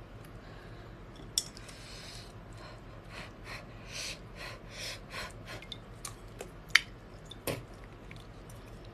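Utensils clicking and clinking against dishes, with short scraping sounds in the middle and a few sharp clicks, the sharpest about seven seconds in.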